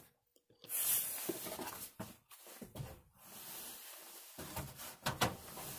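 A few light knocks and clicks with soft scraping and handling noise as a pizza is put into an RV's propane oven. The knocks are scattered, with a cluster of them near the end.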